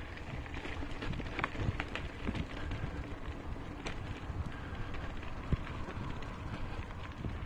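Bicycle rolling along a dirt path: steady tyre rumble with small rattles and knocks from the bike, a sharper knock about five and a half seconds in, and wind buffeting the microphone.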